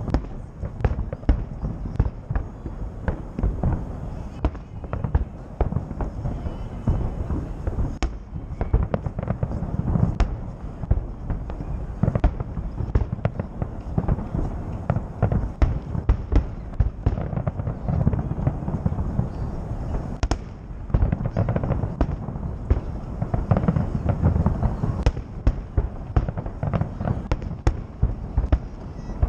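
Fireworks display: a rapid, continuous barrage of booms and cracks from shells bursting overhead, with no real break.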